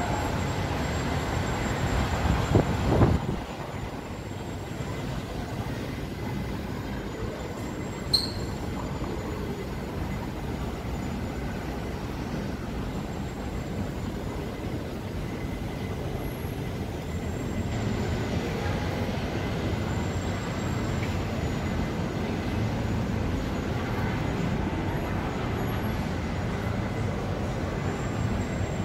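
Steady hum of city traffic, with a short louder rumble about two to three seconds in and a single sharp click near eight seconds.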